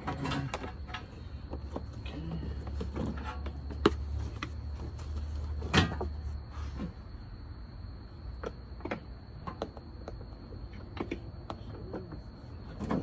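Scattered clicks and knocks of car parts being handled at the front end of a car, as a grille and bumper go back on, with two sharper knocks about four and six seconds in. A steady high tone runs underneath.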